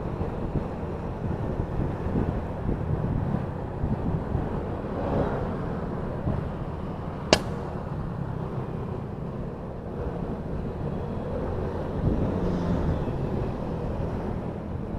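Wind buffeting the microphone of a helmet-mounted dashcam while riding in traffic, over a steady low road and engine rumble. A single sharp click about seven seconds in.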